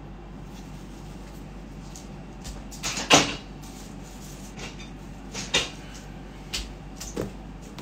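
A few short knocks and clunks of things being handled, with a loud one about three seconds in and three lighter ones later, over a faint steady hum.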